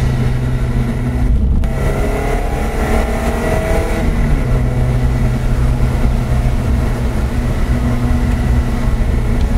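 Lotus Elise engine heard from inside the cabin at speed on track: a brief lift about a second and a half in, then rising in pitch as the car accelerates, running steadily through the second half.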